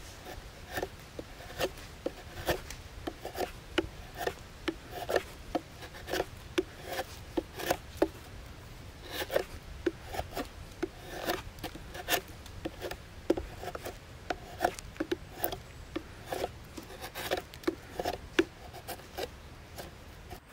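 A blade cutting into fresh birch wood in quick, irregular strokes, about two a second, each a short crisp slicing scrape as a shaving comes away.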